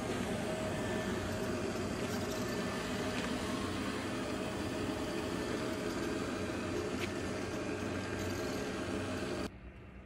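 XWOW R2 robot vacuum and mop running as it drives across the floor: a steady whir from its suction fan and brushes with a faint steady hum in it. It stops suddenly near the end.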